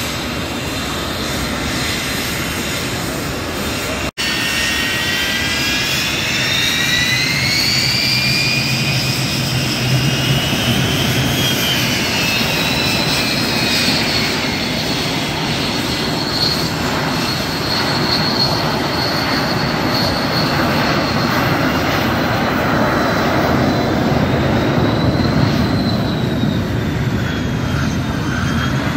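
Jet trainers (L-39 Albatros and L-29) taxiing, a steady loud turbine rumble with a high whine that rises and then falls in pitch. The sound cuts out for an instant about four seconds in.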